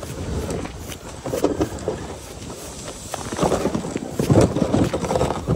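Footsteps crunching on snow-covered lake ice while a sled loaded with gear is dragged behind on tow ropes; the footfalls grow louder about halfway through.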